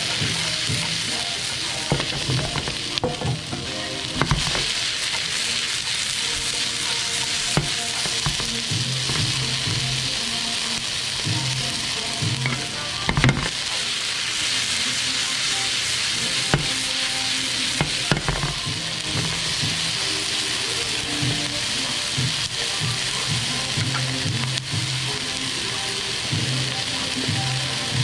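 Diced onions and bell peppers sizzling steadily in a hot frying pan, tossed and stirred with a spatula, with occasional clicks and knocks of the spatula and pan; the loudest knock is about halfway through.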